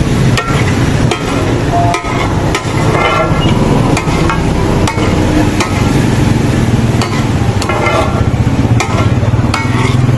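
Two metal spatulas clanging and scraping on a large flat tawa griddle as chicken liver and gizzards are tossed and fried down in masala, an irregular clatter of metal strikes with brief ringing. A steady low hum runs underneath.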